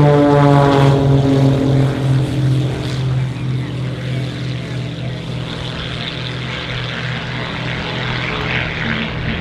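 Engines and propellers of three Pitts aerobatic biplanes on a formation takeoff, the pitch dropping as they pass and the sound fading somewhat as they lift off and pull away.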